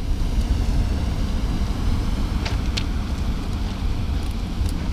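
Steady low rumble of wind and surf on an open shore, with two light sharp clicks about two and a half seconds in.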